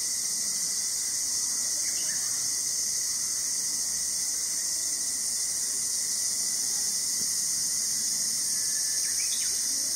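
A steady, high-pitched chorus of insects, an unbroken shrill hiss that keeps the same level throughout. A faint short chirp cuts in about two seconds in and again near the end.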